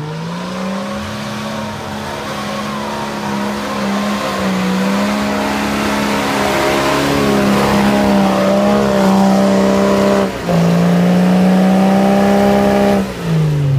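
Lifted off-road 4x4 engine held at high revs as the truck churns through deep mud with its wheels spinning. The revs break off briefly about ten seconds in, pick up again, then drop away near the end.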